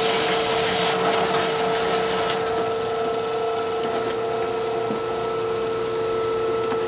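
Drill press motor running with a steady whine while a hole saw cuts a disc out of steel plate. The cutting hiss fades about two seconds in as the saw lifts out, and the drill press runs on free until it is switched off at the end.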